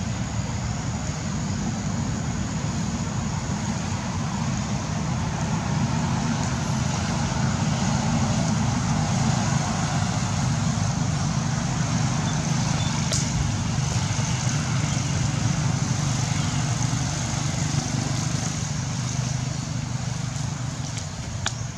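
A steady low rumble of a running engine with a hiss over it, slightly louder in the middle, and one brief click about two-thirds of the way through.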